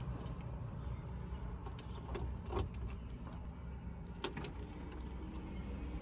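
Keys jangling on a key ring, with short metallic clicks as the ignition key is put into the dashboard ignition switch, over a low steady rumble.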